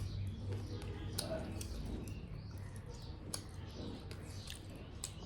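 Close-miked eating sounds: irregular wet clicks of chewing and lip smacking over a faint steady low hum.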